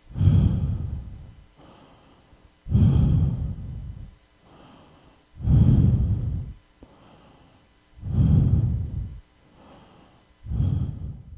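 Heavy, rhythmic breathing close to the microphone: five loud exhales about two and a half seconds apart, each starting suddenly and tailing off, with quieter inhales between them. It cuts off suddenly at the end.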